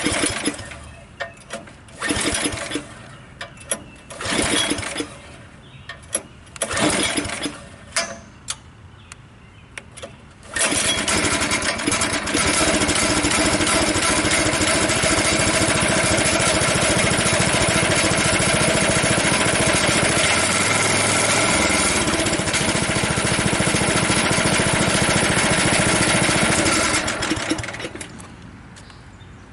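Small gas engine on a portable sawmill being recoil pull-started: about four rope pulls that don't catch, then it starts about ten seconds in and runs steadily for some seventeen seconds before shutting off near the end.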